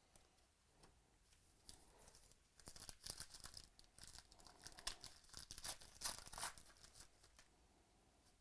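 Foil wrapper of a trading-card pack being torn open and crinkled: a few seconds of crackly ripping and rustling in the middle, with small sharp clicks.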